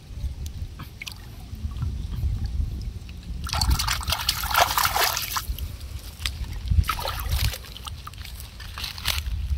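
Shallow muddy water sloshing and splashing as hands work under the surface, with two louder stretches of splashing in the middle, over a steady low rumble.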